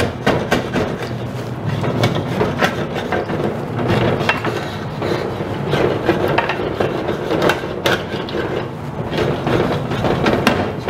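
Wooden spoon scraping and knocking against the bottom of an aluminium wok in simmering sauce, in quick irregular strokes. It is loosening the bits still stuck to the pan.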